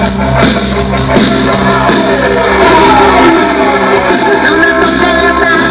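Cumbia music played loud through a sonido's sound system.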